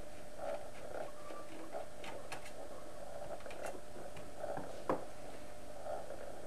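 Small scattered clicks and ticks of a screwdriver and screws being handled against an LCD monitor's sheet-metal chassis, with one louder click about five seconds in, over a steady hum.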